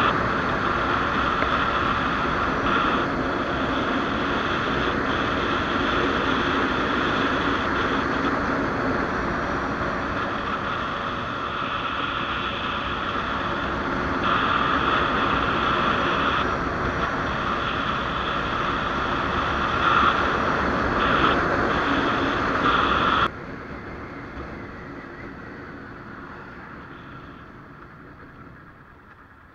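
Riding noise on a 1994 BMW F650 motorcycle: steady wind rushing over the microphone with the engine underneath. About 23 seconds in it drops abruptly and then fades further as the bike slows for a roundabout.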